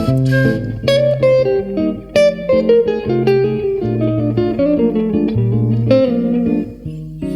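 Solo jazz guitar playing a bebop line over its own bass notes, plucked notes each ringing and dying away, with no flute in this passage.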